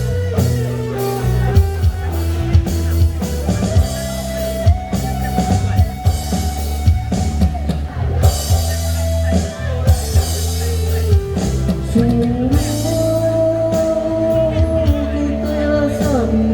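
Instrumental break in a Malay rock ballad: drum kit and bass under a sustained, gliding lead guitar melody.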